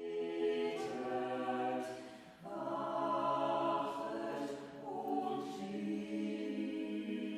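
A choir singing slow, sustained chords, moving to a new, fuller chord about two and a half seconds in and again near five seconds.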